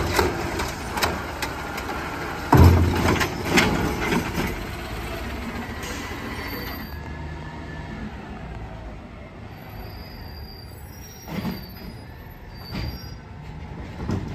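Autocar ACX automated side-loader garbage truck emptying a cart: several bangs as the arm shakes it out, then a heavy slam about two and a half seconds in. After that the truck runs and rolls along with short high brake squeals and a few knocks.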